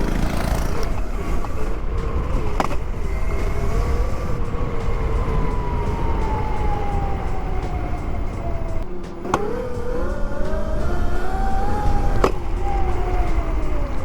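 Electric dirt bike's brushless hub-drive motor whining, the pitch sliding slowly down and then climbing again as the throttle is eased off and opened up, over a heavy rumble of wind and tyres. Three sharp knocks come through, about three, nine and twelve seconds in.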